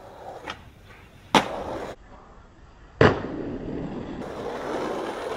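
Skateboard tricks: a light click, then a sharp wooden clack of a skateboard landing. About three seconds in, another hard landing, followed by the hard wheels rolling on asphalt, growing louder.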